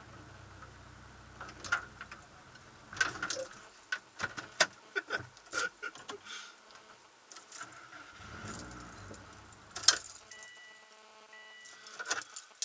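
Irregular clicks, knocks and jingling rattles inside a stopped car, with a low steady hum for the first few seconds that then stops, and a short electronic beep about ten seconds in.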